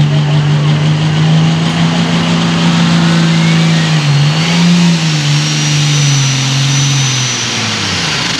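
Light limited super stock pulling tractor's turbocharged diesel engine running hard under load on the pull, with a thin high turbo whine climbing steadily in pitch. The engine note dips about four seconds in, rises again, then drops away near the end as the power comes off.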